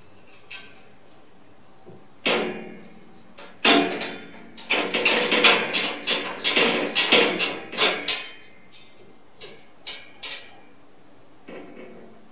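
Metal sliding bolt latch and wire cage door rattling and clanking as a cat paws and pulls at the latch: a flurry of sharp metallic knocks through the middle, then a few single knocks.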